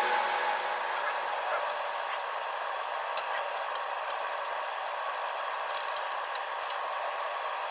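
Steady background hiss with scattered faint light ticks and clicks.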